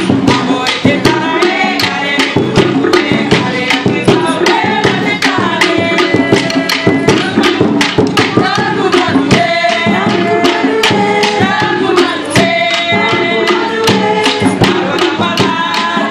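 Cook Islands drum-dance music: a fast, steady drumbeat of about four to five strokes a second, with voices singing over it.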